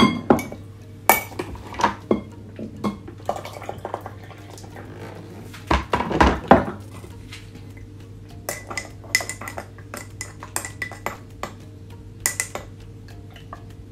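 Teaspoon and ceramic mug clinking as tea is made: sharp knocks of the spoon and jar, a rush of water poured from an electric kettle about six seconds in, then a run of quick light clinks as the spoon stirs the mug.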